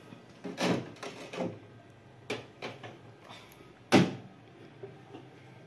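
A refrigerator's doors and a plate being handled: several soft knocks and bumps, then one sharp clunk about four seconds in.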